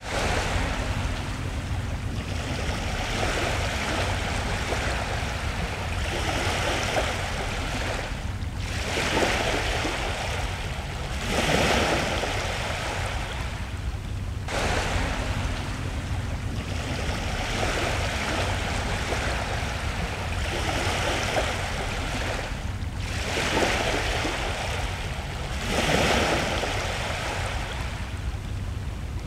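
Ocean surf: waves breaking and washing in over a steady low rumble, the wash swelling and fading every few seconds.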